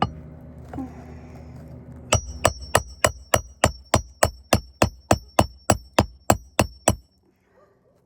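A hammer driving a roofing nail through an asphalt shingle: a quick, even run of about seventeen strikes, about three a second, each with a short metallic ring, starting about two seconds in and stopping near the end. A steady low hum is heard before the strikes begin.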